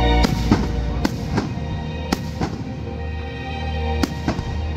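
Aerial fireworks shells bursting in a series of sharp bangs, several coming in quick pairs, over music playing.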